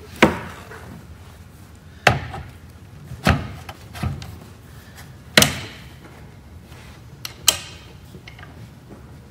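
Hard knocks and thuds as the parts of a floor edger, its dust tube and bag fitting among them, are handled and set against a wooden workbench. There are about six sharp knocks at uneven intervals, the loudest about five and a half seconds in.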